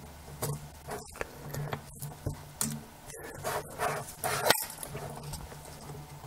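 Scattered small clicks and rustles of plastic lens-barrel parts being handled and fitted together with gloved hands and tweezers, with one sharper click about four and a half seconds in.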